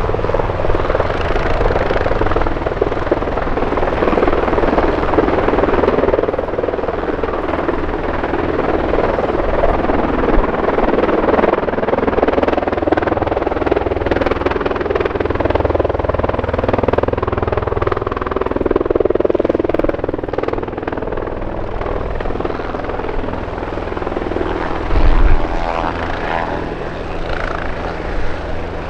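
Piston-engine propeller aircraft droning steadily in flight as a warbird makes its pass. A brief loud thump comes about 25 seconds in.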